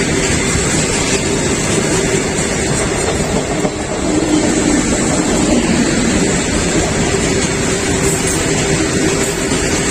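A train running: a loud, steady rumble of wheels on rails with a constant hum under it.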